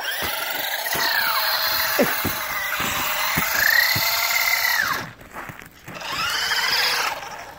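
Electric RC buggy's motor whining, its pitch rising and falling as the car speeds up and slows down. It comes in three runs, with a short break about five seconds in.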